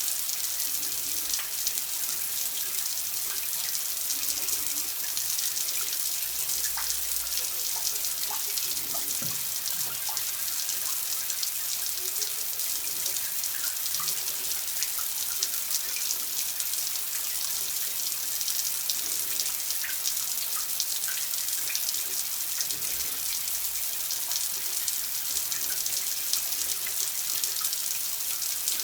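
Running water: a steady, hissy stream splashing, dotted with small drip-like plinks.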